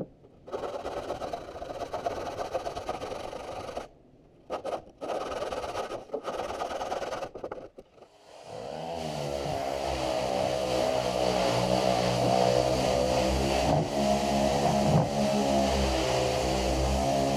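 Metabo random orbital sander on a boat's plywood gunwale. In the first half there are stretches of scratchy rubbing noise broken by short pauses. About halfway through the sander's motor starts, rising in pitch, then runs steadily with a whine.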